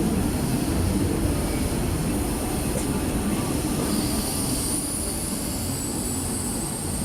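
Steady running noise of a CNC press brake and an industrial robot working together on small parts. A faint high whine shifts in pitch over the second half.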